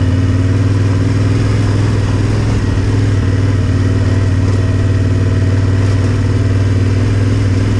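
Yamaha Ténéré 700's parallel-twin engine running steadily at low, even revs while the motorcycle is ridden along a dirt trail.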